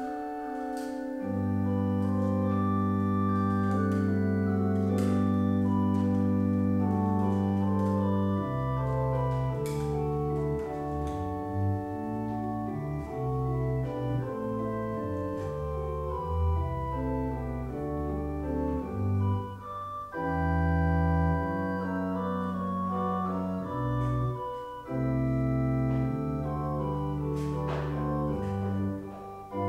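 Church organ playing slow, sustained chords over long held bass notes, the harmony shifting from phrase to phrase with short breaks between them.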